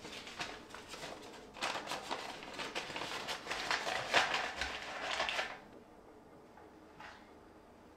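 Kitchen handling during breakfast preparation: a dense run of crisp rustling and light crackling for about four seconds that stops suddenly, with a few softer rustles before it and one small tick near the end.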